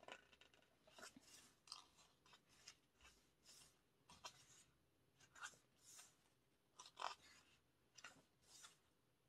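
Faint, short rustles and soft taps of photobook pages being handled and turned, coming irregularly about once or twice a second.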